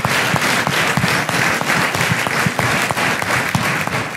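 A large audience applauding: dense, steady clapping that starts to die down near the end.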